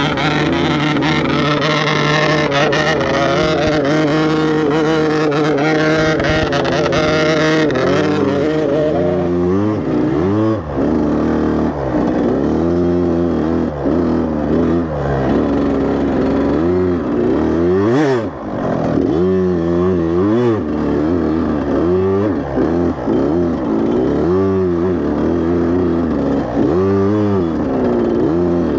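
65cc two-stroke dirt bike engine (GasGas MC 65) ridden hard. It holds high revs for the first several seconds, then rises and falls in pitch over and over as the throttle is opened and shut, with a short sharp knock about eighteen seconds in.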